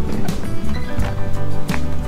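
Background music with a steady beat: repeating bass notes, held notes above them and regular light percussion.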